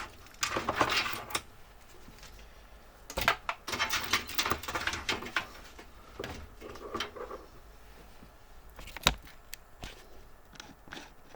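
Scattered clicks, knocks and rattles of computer parts and case panels being handled during disassembly, with a single sharp click about nine seconds in.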